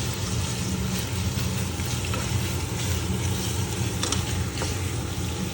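Thin-sliced pork belly sizzling in hot oil and garlic as it is stir-fried in a pan, with a steady low hum underneath and a few faint clicks.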